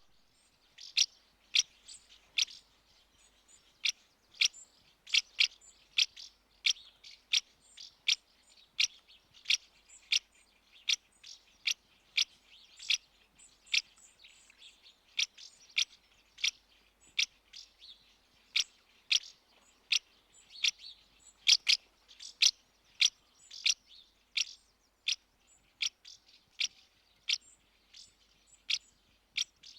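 Common house martin calling: a long series of short, sharp chirps, about one or two a second at uneven spacing, some louder than others.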